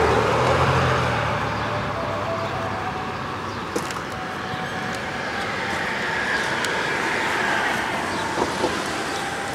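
Vehicle noise passing by, loudest at the start and easing off, with a faint steady whine through the second half and a few light clicks.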